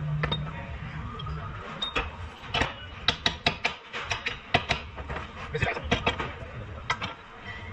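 A run of sharp, irregular metal clicks and knocks from hand tools, several in quick succession from about three seconds in.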